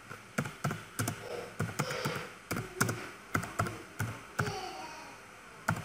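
Typing on a computer keyboard: single keystrokes clicking at an uneven pace, about two or three a second, then a pause and one last keystroke near the end.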